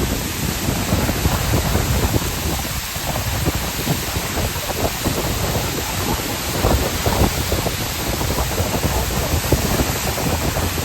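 Waterfall rushing close by, a loud steady wash of water noise, with uneven low gusts of wind buffeting the microphone.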